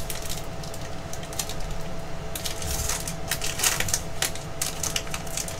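Wrapper of a 2020 Topps Heritage High Number baseball card pack being torn open and crinkled by hand: a run of short, sharp crackles, thickest around the middle, as the cards are pulled out.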